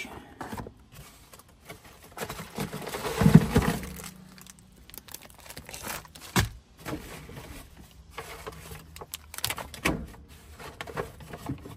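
Brown paper bags rustling and crinkling as food is lifted out of a portable fridge, loudest about three seconds in, with a few light knocks and clicks later on.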